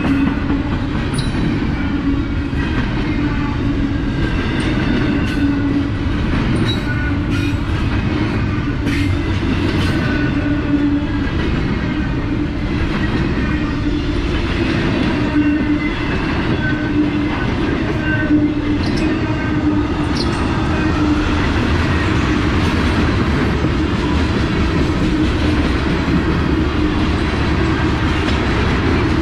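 Freight train rolling past close by, double-stack container well cars and then tank cars: a steady rumble of steel wheels on the rails with scattered clanks and clicks.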